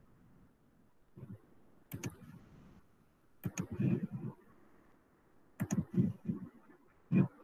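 Computer mouse clicking: four sharp clicks spaced about one and a half to two seconds apart, each followed by a short low thud.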